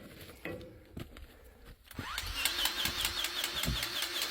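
A motor starts up about two seconds in, rising briefly in pitch, then runs steadily with a fast, even clatter of about five strokes a second.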